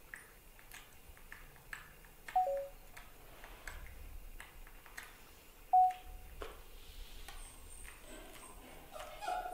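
Two brief high-pitched animal squeaks, the first stepping down to a lower note and the second about three seconds later, with faint clicks between.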